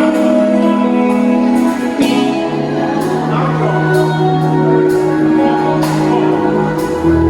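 Music: sustained chords with long held notes and a soft beat about once a second, a lower bass note coming in a couple of seconds in.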